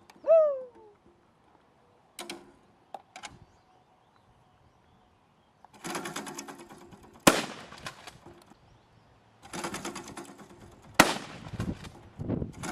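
Gunfire at a shooting range: stretches of rapid crackling fire, each ending in a single sharp, loud shot, about seven seconds in and again about eleven seconds in. A few light clicks come earlier.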